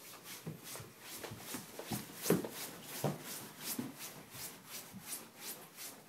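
Children's nylon snow pants swishing as the legs rub together while walking, a quick rhythm of about three or four swishes a second, with a few soft thumps of footsteps.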